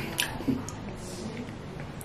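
Metal chopsticks and spoon clicking lightly against a ceramic soup bowl: a few faint, short clicks, most of them in the first second.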